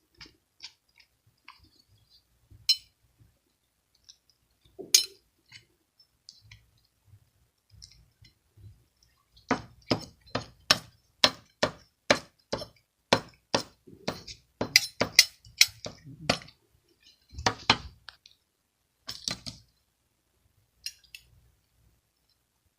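A series of sharp clicks and clinks: a few scattered at first, then a steady run of about two a second for several seconds in the middle, thinning out again near the end.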